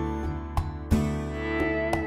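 Background music: an instrumental passage of a Chinese pop ballad, with plucked guitar notes ringing over sustained chords and no singing.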